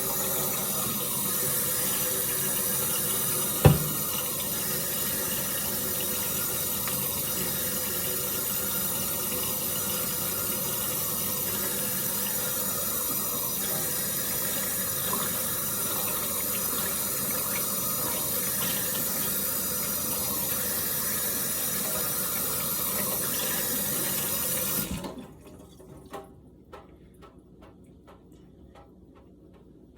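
Water tap running steadily into a sink for about 25 seconds, with one sharp knock a few seconds in. The water cuts off suddenly, followed by a few faint taps.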